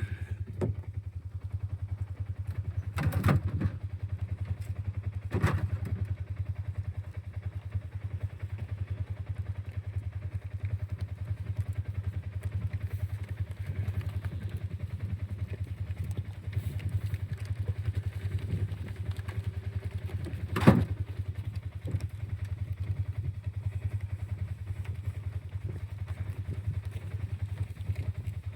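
A vehicle engine running steadily at low speed, with a few separate knocks or clunks over it; the loudest comes about twenty seconds in.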